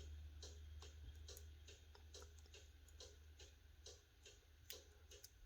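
Near silence over a low hum, with faint, evenly spaced ticks about twice a second.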